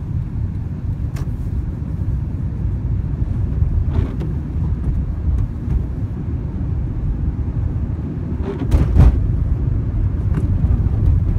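Steady low rumble of a car running, heard from inside the cabin, with a few brief knocks, the loudest about nine seconds in.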